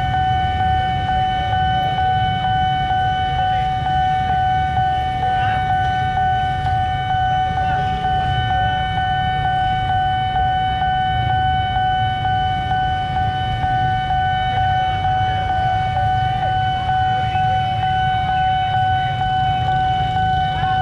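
A steady, unbroken siren-like tone that holds one pitch, over a low rumble of road traffic.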